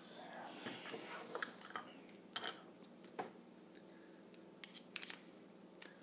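Small metal clicks and taps from a steel padlock and lock-picking tools being handled on a wooden table, with light rustling; the sharpest clicks come near the middle and in a quick cluster near the end.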